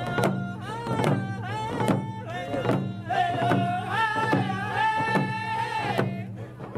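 Hand drum song: a frame drum struck at a steady beat of about two a second while a voice sings a gliding melody of vocables, holding long notes in the middle.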